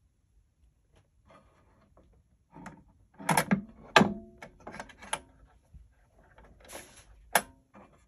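Handling noise from a 1915 Pathé phonograph: knocks and clicks of its brass tone arm and wooden cabinet as they are gripped and moved by hand, bunched about halfway through. A short rustle and one sharp click follow near the end.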